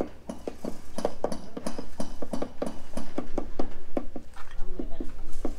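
Rapid, even knocking, about five strikes a second, easing off near the end.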